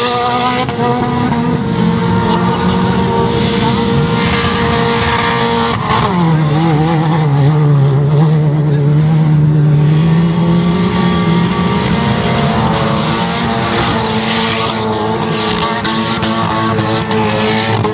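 Wreck-race cars' engines running hard at high revs on a dirt track. About six seconds in, the engine note drops sharply and then climbs back slowly over several seconds.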